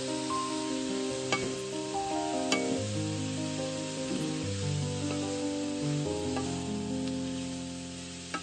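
Diced ham and vegetables sizzling in oil in a frying pan while a wooden spatula stirs them, with sharp knocks of the spatula on the pan a little over a second in and again about two and a half seconds in. Soft background music with held notes plays under the frying.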